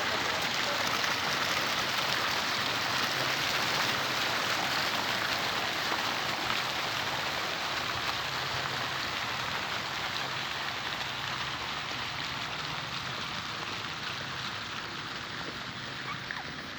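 Steady rush of splashing, falling water that grows gradually quieter toward the end.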